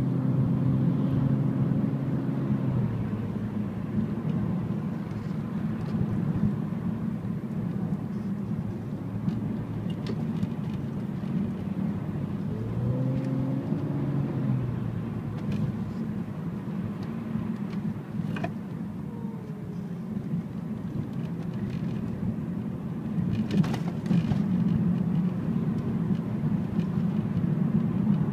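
Steady engine and tyre noise of a car driving on an open road, heard from inside the cabin. A steady tone cuts off about three seconds in, and around halfway a brief tone rises and then falls in pitch.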